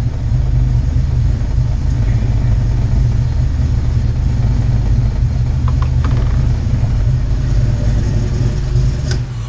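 Fox-body Mustang's 5.0 V8 idling steadily with a deep, even rumble. Its negative battery cable is disconnected, and the alternator alone keeps it running.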